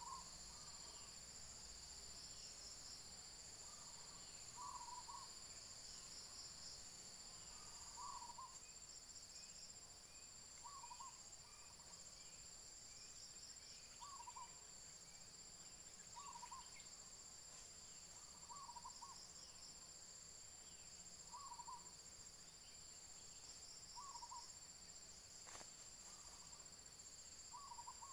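Faint, steady drone of insects, with a short call repeated about every three seconds over it.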